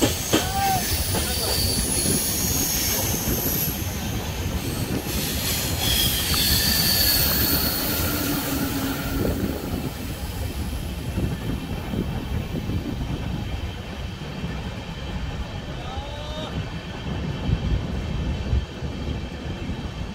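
Passenger train's steel wheels running on the rails, heard from inside the coach: a steady rumble with high-pitched wheel squeal, the sound of flanges grinding on the curves of a steep ghat descent. The squeal fades out about halfway through, leaving the rumble.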